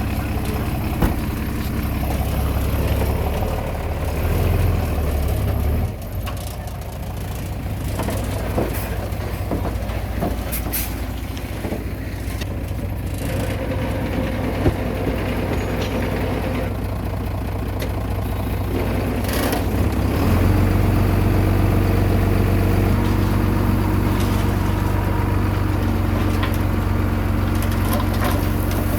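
Heavy diesel engine running, its note dropping about six seconds in and settling into a steady hum about twenty seconds in, with scattered knocks and clanks.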